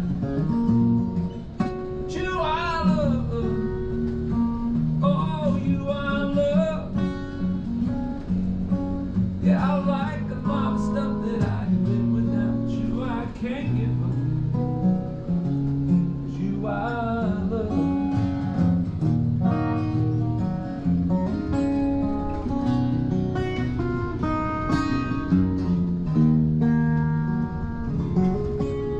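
Live acoustic guitar playing an instrumental break in a country song, with a wordless vocal line sliding in pitch over it a few times.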